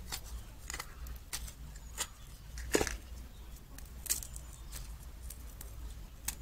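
Scattered small crinkles and clicks of metallised plastic film being peeled and handled from the wound roll of a dismantled film capacitor, with one louder tap a little under three seconds in.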